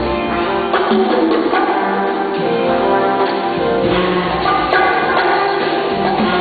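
Live band music: sustained instruments with light percussion.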